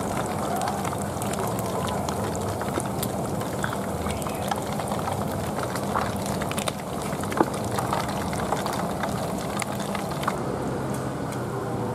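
Hot cooking oil sizzling and crackling as fish deep-fries in a wok, a steady hiss with many small pops and a faint low hum underneath.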